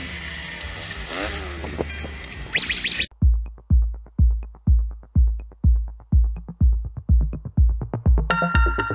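A dirt bike engine revs on the track for about three seconds. Then the sound cuts off abruptly and electronic music takes over, with a heavy kick drum beating about twice a second. A synth layer comes in near the end.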